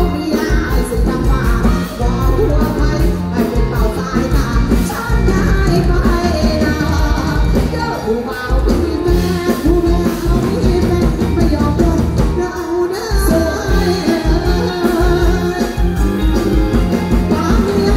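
Live band music played loud, with a steady beat and a woman singing into a microphone.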